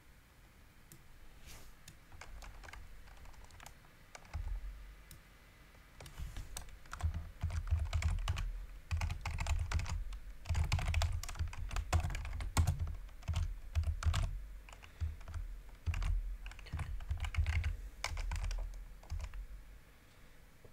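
Typing on a computer keyboard. A few scattered clicks come first, then runs of quick keystrokes with a dull low thump under them from about four seconds in until near the end.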